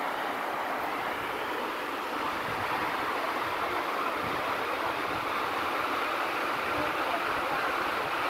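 A waterfall rushing steadily: an even, unbroken roar of falling water.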